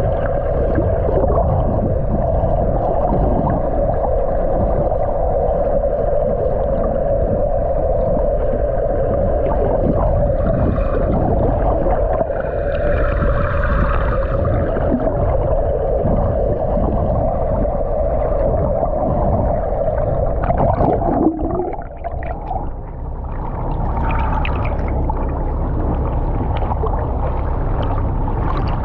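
Water rushing past a camera held underwater beside a moving catamaran's hull, heard as a steady muffled drone. About 21 seconds in the camera breaks the surface and water splashes and laps around it.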